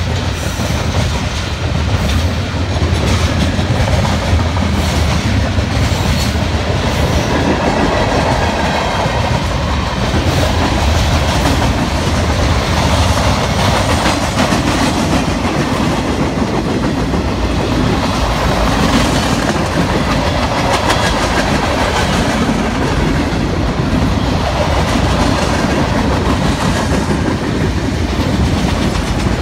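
Freight train of tank cars, gondolas and autorack cars rolling past, a steady loud rumble with the wheels clicking over rail joints.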